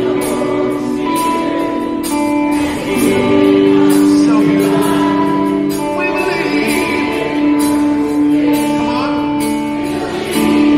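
Live Christian pop-rock band playing in a large arena, with long held notes, singing and a steady cymbal beat, heard from the audience with the hall's echo.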